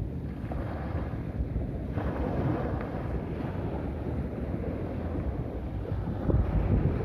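Sea waves washing onto a beach with wind buffeting the microphone, as a steady low rumble and wash; a louder surge comes about six seconds in.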